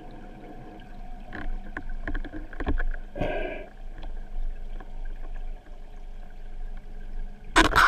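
Underwater recording along a speargun: a steady hum with scattered clicks and knocks from the gun and its line being handled, a short rushing burst a little past three seconds in, and a loud cluster of clicks near the end.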